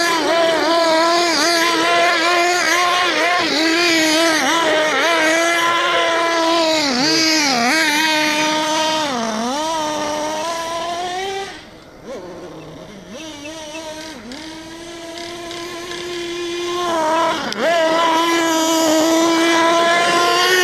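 A 1:8-scale RC car's small high-revving engine, its pitch rising and falling constantly as it is throttled through turns in the snow. It fades sharply about halfway through as the car runs off into the distance, then comes back loud near the end.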